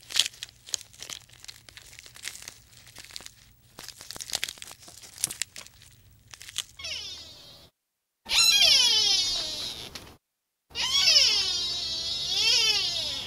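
Faint irregular crackling and clicking for the first several seconds. Then three loud, drawn-out animal calls with hard silences between them, each sliding down in pitch, the last one dipping and rising again.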